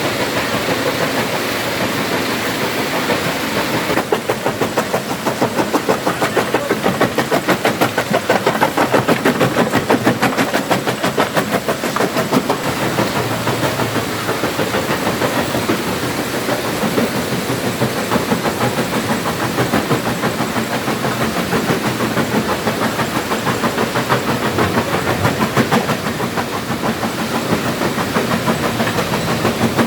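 Stone crusher machine running and breaking rock, a loud steady mechanical noise with a dense, rapid rattling clatter that gets louder about four seconds in.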